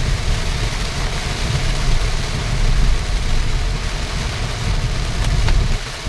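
Steady rain falling, with a strong low rumble underneath.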